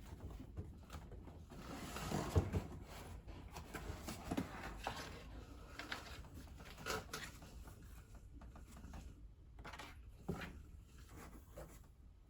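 A kitten scrabbling in cardboard: irregular light scratches, taps and rustles, with a busier patch about two seconds in.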